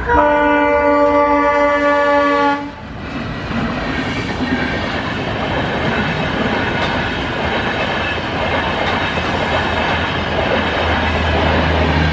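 WDM-3D ALCo diesel locomotive's horn sounding one loud blast of about two and a half seconds that cuts off abruptly, followed by the train passing at high speed: a steady rush of wheels on rails and coaches.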